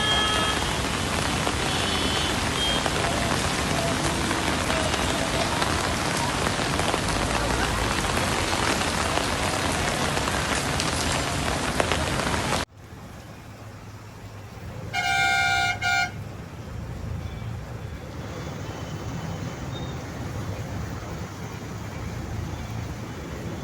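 Heavy rain hissing steadily with traffic underneath, cutting off abruptly about halfway through to quieter traffic rumble. A couple of seconds later a vehicle horn sounds once for about a second.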